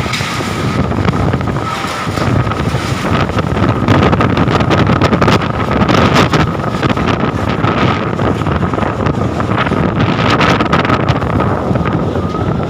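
Strong gusting windstorm wind blasting against the microphone, swelling and easing in gusts, loudest through the middle, with a thin steady high whistle underneath.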